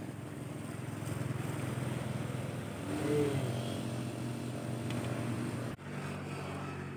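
An engine running steadily, with a brief rise and fall in pitch about three seconds in and a momentary dropout near the end.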